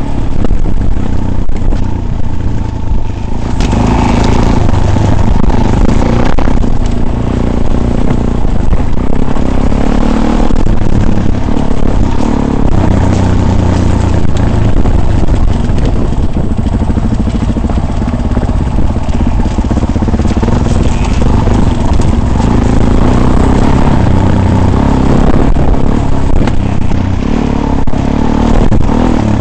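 A vehicle driving over rough off-road ground: a steady, loud run of engine and rattling noise with no break.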